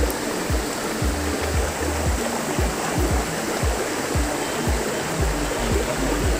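Background music with a steady thumping beat, about two beats a second, over an even rush of flowing water.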